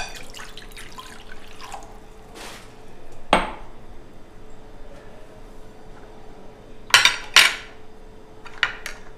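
Glass and bowl clinking and knocking against each other and the worktop as lukewarm water is handled: a few sharp knocks, the loudest two close together about seven seconds in, with light clinks near the end.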